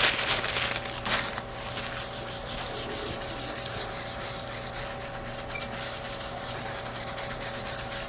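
Handwriting being wiped off an overhead-projector transparency: a steady, scratchy rubbing that goes on throughout, over a steady hum.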